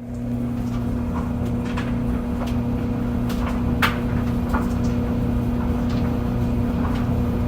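Clothes dryer running, a steady hum and rumble with a constant low tone, overlaid by irregular light clicks and knocks from the tumbling load, the sharpest about four seconds in. The sound fades up in the first half-second.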